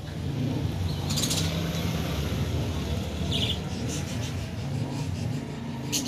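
A flock of fantail pigeons cooing, a low continuous rumbling murmur, with a few short scratchy rustles about a second in, again past the middle, and near the end.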